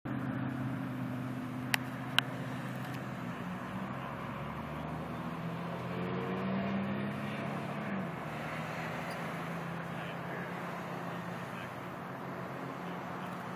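Road traffic at an intersection: a steady wash of car noise with a low engine hum, one engine note rising in pitch between about five and eight seconds in. Two sharp clicks just before and after two seconds in.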